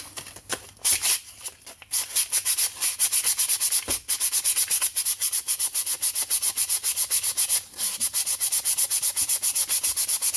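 Sandpaper rubbed by hand across the oxidised plastic top cover of a Husqvarna 2100 chainsaw, sanding off the chalky surface. A few scattered strokes at first, then quick, even back-and-forth scratching strokes of about five a second from about two seconds in, with brief stops near four and eight seconds.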